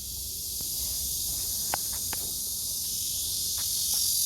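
Blackish cicadas (Cryptotympana atrata) singing in a steady, high-pitched continuous buzz that grows slowly louder, with a few faint clicks.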